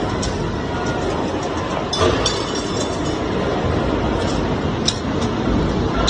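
CNC flat bar bending machine running automatically: a steady mechanical noise broken by a few sharp metal clanks as it punches, cuts and bends flat bar into pipe clamps.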